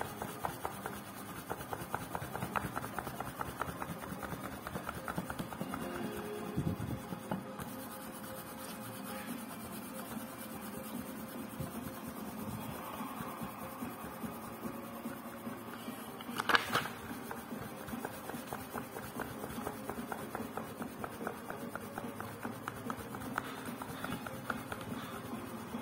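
A fingertip rubbing along the lines of a paper book page, a long run of small rapid ticks, with one louder handling sound about two-thirds of the way through as a page is turned.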